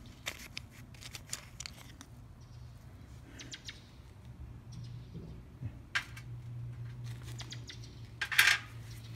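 Light clicks and scrapes of a small flathead screwdriver working on a plastic Briggs & Stratton carburetor as its float hinge pin is pried out, with a louder scrape near the end. A steady low hum runs underneath.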